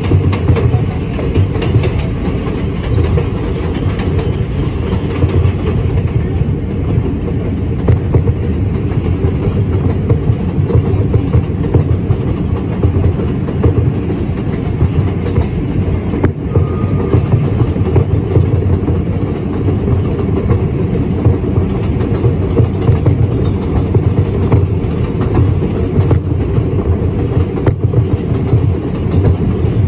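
Riding inside an R142 subway car running at speed: a steady, loud rumble of wheels and running gear, with scattered clicks as the wheels cross rail joints.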